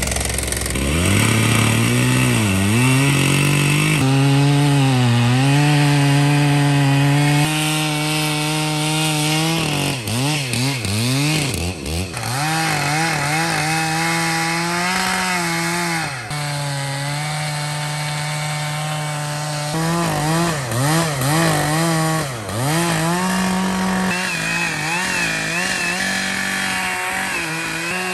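Large 120cc Stihl chainsaw cutting into a big elm stump at full throttle. The engine note drops again and again as the bar bogs down under load in the wood, then climbs back up to speed.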